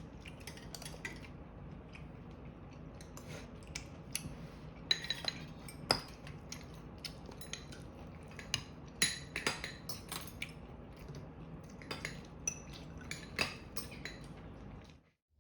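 Cutlery and dishes clinking: many light, irregular clinks and taps over a steady low hum, stopping suddenly near the end.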